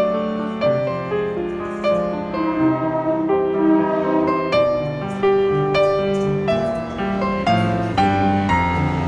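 Background music: a piano melody of notes struck one after another over lower held notes.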